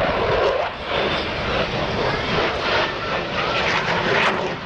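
Jet engines of a four-ship diamond formation of F-16 Fighting Falcons flying a display pass, heard from the ground as steady, loud jet noise.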